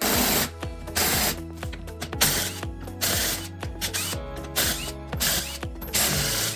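Hand ratchet wrench clicking in short repeated bursts as it works the 10 mm bolts on the case of a BMW X5 E53's NV125 transfer case. Background music plays underneath.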